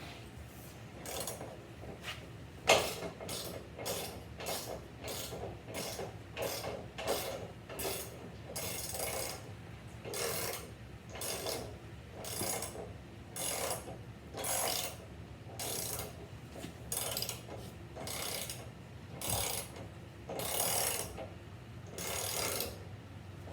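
Hand ratchet being worked back and forth, its pawl clicking in short rasping strokes about once a second, with one sharp knock about three seconds in.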